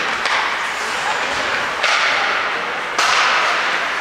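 Hockey skate blades scraping hard on the ice: two sudden hissing scrapes about a second apart, the second one louder.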